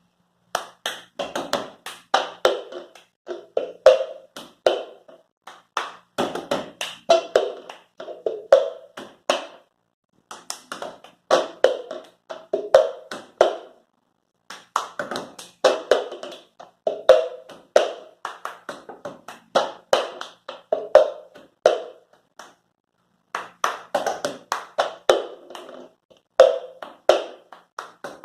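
Cup rhythm played by hand: a cup tapped, knocked and set down in quick patterns mixed with hand claps and slaps. The phrases run a few seconds each, repeat with short pauses between them, and stop briefly a few times.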